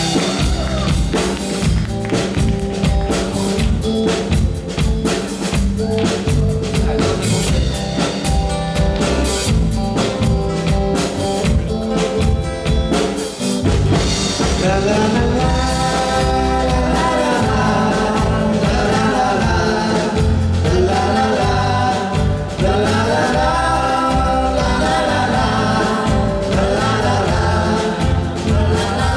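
A live band playing a song. The first half is an instrumental stretch driven by a drum kit and bass, and a singer comes in about halfway through over the band.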